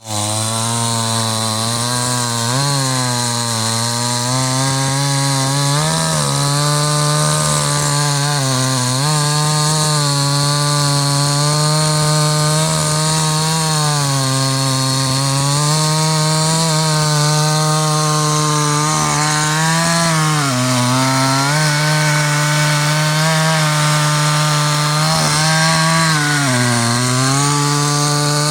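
Stihl MS 881 two-stroke chainsaw running at high speed while cutting wood. Its pitch dips several times as the engine is pulled down under load in the cut, then picks back up.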